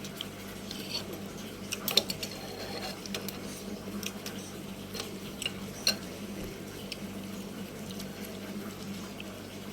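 Scattered light clinks and clicks of eating utensils against a noodle bowl, the sharpest about two seconds and six seconds in, over a steady low hum.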